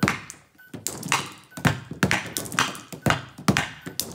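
A hockey stick blade and a puck clacking on a SuperDeker stickhandling training board as the puck is batted quickly from side to side. The sharp knocks come about two to three times a second.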